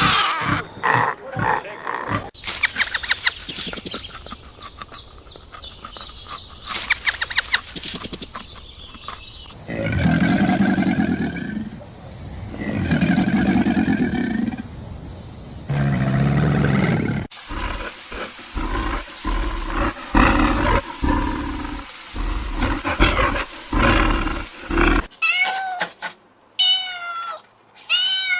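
A string of different animal calls one after another: a rapid clicking, rattling call, then three long, deep calls, then a cat meowing several times near the end.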